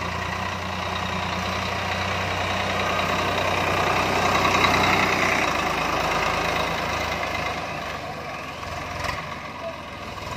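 Swaraj 744 FE tractor's three-cylinder diesel engine running at a steady low speed as the tractor rolls over dry pearl millet stalks spread on the road, its tyres crushing the stalks to thresh them. The sound grows louder as the tractor passes close about halfway through, then fades as it moves away.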